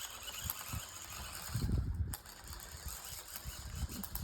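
Small toy RC car running, its motor and gears giving a mechanical, engine-like whirring and rattling. The owner puts this noise down to a gear that came off.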